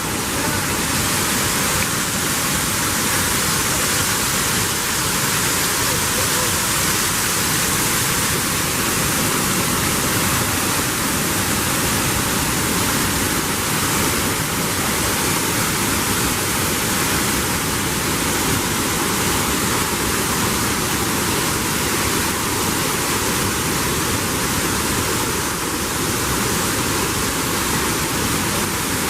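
Waterfall rushing close to the microphone: loud, steady falling water without a break.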